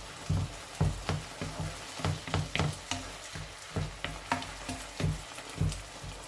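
Wooden spatula knocking and scraping against a frying pan, about three knocks a second, as chopped tomatoes and vegetables are stirred and crushed in the pan, over a low sizzle of frying.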